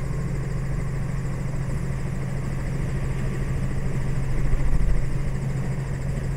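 Robinson R44 helicopter's six-cylinder piston engine and rotors running steadily on the ground before takeoff, a constant low drone. The low rumble swells briefly about four and a half seconds in.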